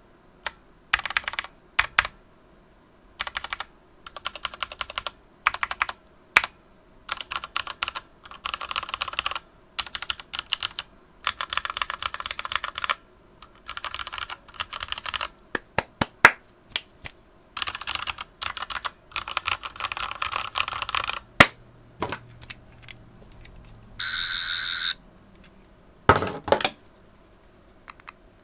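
Ducky One 2 Mini mechanical keyboard with Cherry MX Red linear switches being typed on in quick bursts of keystrokes with short pauses between, the board resting on a cloth over a synthetic wood desk. Near the end a steady buzzing sound lasts about a second.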